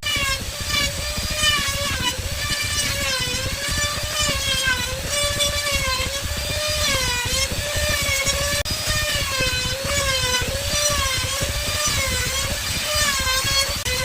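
A motor running steadily with a whine, its pitch dipping and recovering about once a second.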